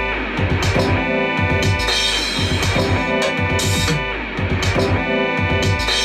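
Looped instrumental beat: a melodic line of stacked tones over a drum pattern with low repeated hits, the phrase repeating about every two seconds.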